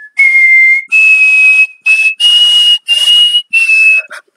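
A loud, breathy whistle sounding six short separate notes, each under a second, stepping up in pitch and falling back a little on the last.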